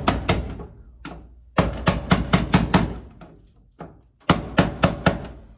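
Sharp, quick knocks like hammer blows on metal or wood, in three short runs of about four to five strikes a second, during work on an electrical panel.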